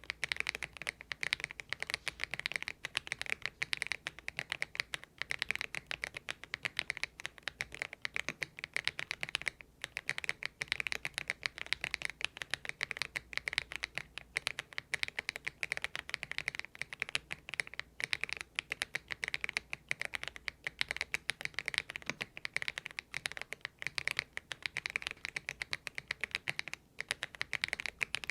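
Typing on a Thinkway TV108 mechanical keyboard with its stock, unlubricated Kailh Box Aurora Ice Cream switches: a fast, continuous run of keystroke clacks, with a short break about ten seconds in and another near the end.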